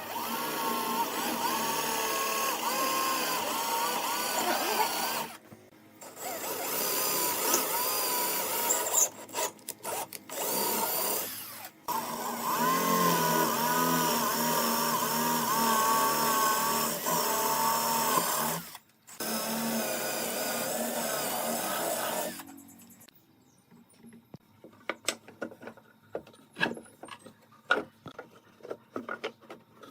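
Power tool running in four long bursts with short pauses between them, its pitch wavering as it works into the wood, followed by scattered light knocks and taps.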